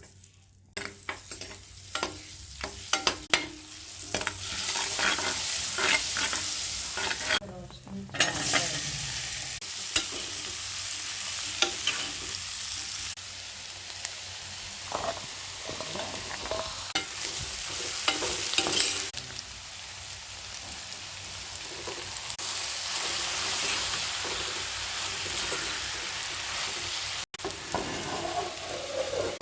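Food sizzling as it fries in a pan while being stirred, with repeated clicks and scrapes of a spoon or spatula against the pan. The sizzle cuts out briefly twice.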